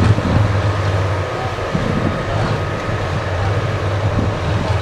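Heavy diesel engine idling with a steady low drone and no revving.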